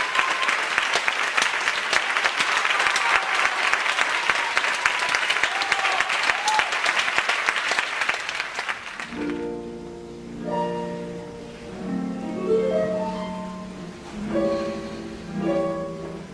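Audience applauding. About nine seconds in the applause gives way to orchestral ballet music that opens softly with short plucked notes in rising runs.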